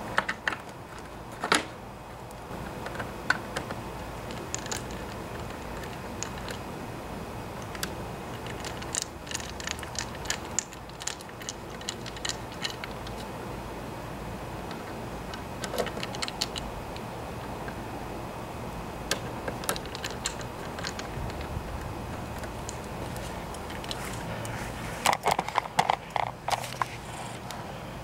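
A screwdriver and its screws clicking and tapping against a lawnmower engine's plastic recoil-starter cover as the cover is refitted: scattered small clicks, with a louder run of clicks near the end.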